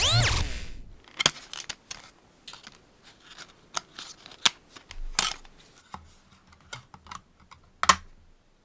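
Electromagnetic and mechanical noises from a 2006 Sony Handycam camcorder: a whine falling steeply in pitch at the start, then a scatter of irregular clicks and short crackles.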